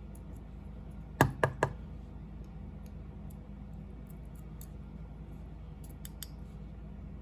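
Small model-locomotive parts and a screwdriver being handled: three sharp clicks in quick succession about a second in, then a few faint ticks later, over a steady low hum.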